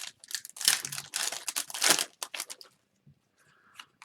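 Foil wrapper of an Upper Deck hockey card pack crinkling and tearing as it is opened by hand, for about two and a half seconds, then it stops.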